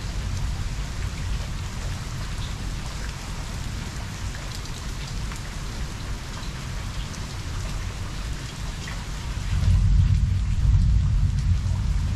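Steady heavy rain falling, with scattered close drops ticking, under a low rumble of thunder that swells louder about three-quarters of the way through.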